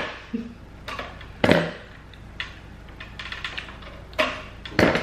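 Clatter of kitchen utensils: an electric hand whisk's metal beaters being handled over a plastic mixing bowl, with three louder knocks among small clicks.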